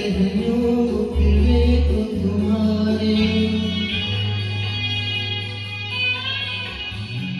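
Background song with singing over a bass line and guitar.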